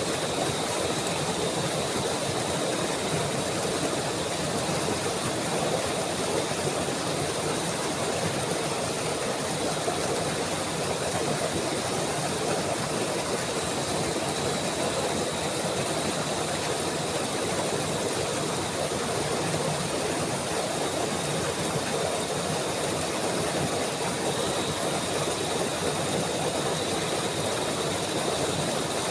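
Steady rushing of flowing water, an unbroken even noise, with faint steady high-pitched tones above it.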